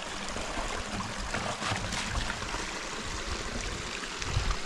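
Steady rush of a shallow stream flowing over stones, with low, uneven rumbles of wind on the microphone.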